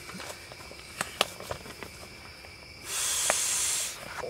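A few light clicks and taps, then a steady hiss about three seconds in that lasts about a second and stops.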